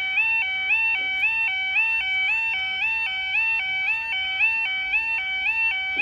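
UK level crossing yodel alarm sounding: a two-tone warble stepping between a lower and a higher pitch about three times a second, warning that a train is approaching and the barriers are in operation.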